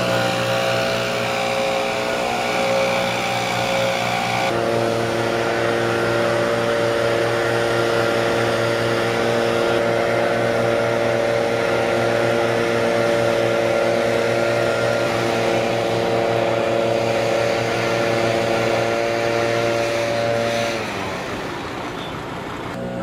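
Two-stroke backpack leaf blower running at a steady high speed, its pitch shifting slightly about four seconds in, then winding down and stopping near the end.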